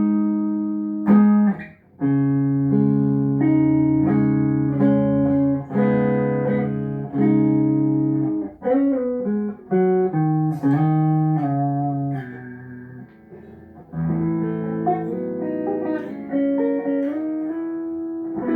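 A Tagima TW61 guitar played solo, plucking ringing chords and melody notes, with a brief break about two seconds in and a softer passage just past the middle. It is a play test of the instrument after repair work.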